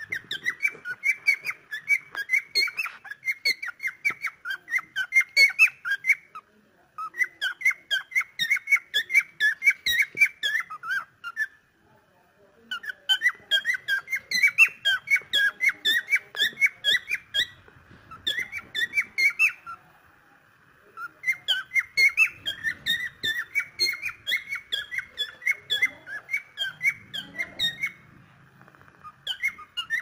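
Cockatiel chirping in long bouts of quick, repeated short high notes, several a second, with brief pauses between bouts.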